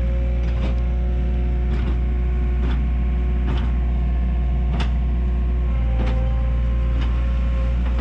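Engine of a tracked earth-moving machine running steadily under work while grading dirt, a deep hum with a sharp knock roughly once a second.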